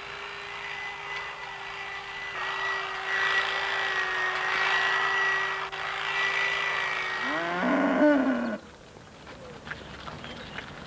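Milking machine running in a milking parlour, a steady hum with a hiss of air and milk through the lines. Near the end a cow gives one short moo, and then the sound drops away sharply.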